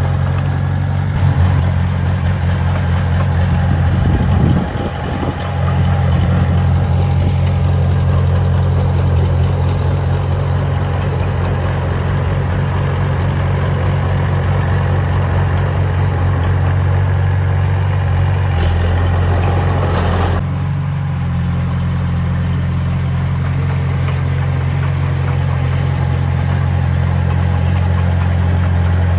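Heavy construction machine's diesel engine running steadily with a deep, even drone. It dips briefly about five seconds in, and there is a short noisy surge around two-thirds of the way through, after which it runs on slightly quieter.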